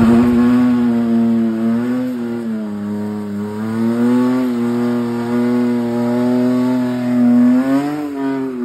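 BMW N54 twin-turbo inline-six, swapped into a BMW 2002, held at high revs as the car spins its rear tyres and slides round in tyre smoke. The note climbs at the start, holds steady with slight wavers, and drops off just before the end.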